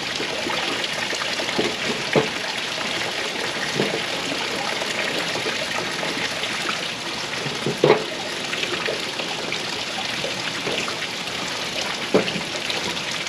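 Steady trickle of water from a backyard pond water feature. A few light knocks of wood being handled on a tabletop come through it, the loudest about eight seconds in.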